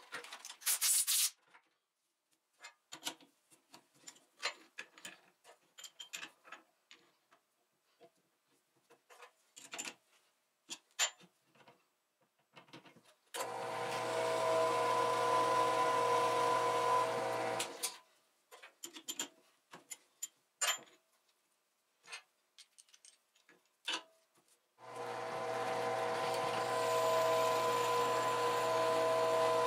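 Drill press running, drilling steel parts through a drill-jig bushing, with a steady tone; it runs in a brief burst at the start, for about four seconds near the middle and again for about five seconds near the end. Scattered clicks and knocks fill the quiet stretches between.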